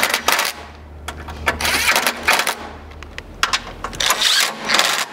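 Cordless Ridgid power driver with a 10 mm socket running in several short bursts, tightening hex-head screws into a metal bracket.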